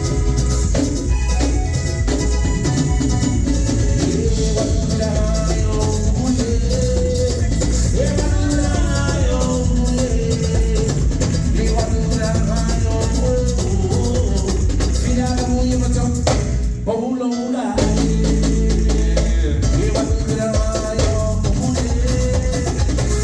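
Live band playing a song, with drum kit, bass and a melody line. About seventeen seconds in, the bass and drums stop for about a second, then the full band comes back in.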